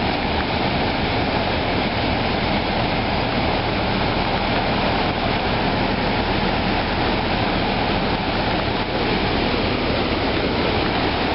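Steady loud rush of flood-swollen river water pouring across a paved road, undermining and lifting the blacktop.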